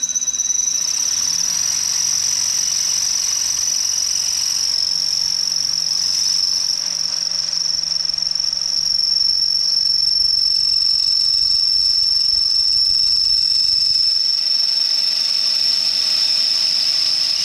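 Cordless drill with a quarter-inch bit running continuously under load, drilling out an existing screw hole in a motorcycle's rear fender. It gives a steady high whine that drops slightly in pitch over the first few seconds, then stops abruptly.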